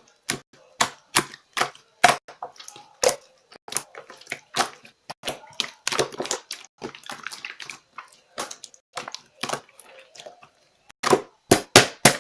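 Slime being pressed and poked, giving a run of sharp sticky clicks and pops, about two or three a second, with a quick cluster near the end.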